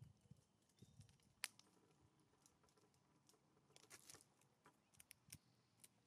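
Faint clicks and crunches of a common raven's bill pecking and scooping dried mealworms off a wooden stump feeder. There is one sharper tap about a second and a half in, and a cluster of small clicks around four seconds and again near the end.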